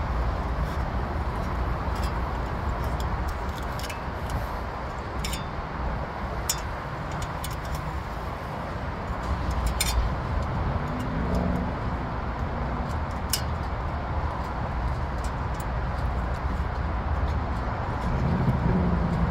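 A few light, sharp metallic clicks and taps as a small evaporator fan motor and its aluminium fan blade are handled, over a steady low background rumble.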